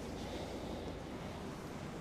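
Steady low hum and hiss of room noise, with no distinct events.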